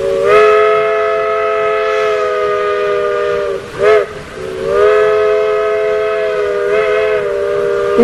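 Steam locomotive whistle blowing several notes at once: a long blast, a short toot about four seconds in, then another long blast.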